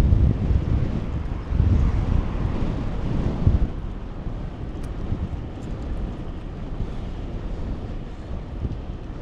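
Wind buffeting the microphone of a moving bicycle rider, a noisy low rumble that gusts hardest for the first few seconds and then eases to a steadier, lower level.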